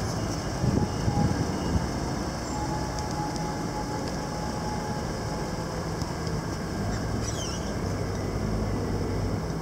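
Steady background vehicle noise outdoors: a low, even engine-like hum with no single event standing out.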